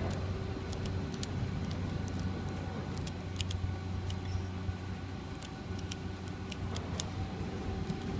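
3x3 Rubik's cube being turned during a solve: its plastic layers click sharply and irregularly, several times a second. Under it runs a steady low mechanical hum with a few held tones.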